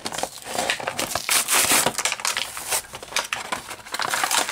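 Clear plastic blister packaging being torn and pulled open from its card backing by hand: a dense run of crackling and crinkling, loudest a little over a second in.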